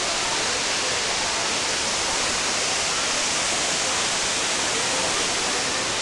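Steady rush of water from a waterfall and its rocky stream: an even hiss that neither rises nor falls.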